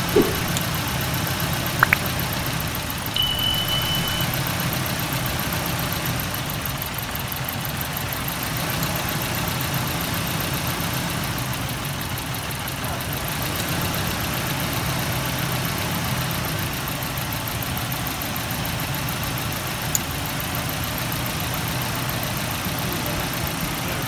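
Nissan 2.4-litre twin-cam 16-valve four-cylinder engine idling steadily; the engine is being diagnosed for a misfire. A few sharp clicks come near the start and once more near the end.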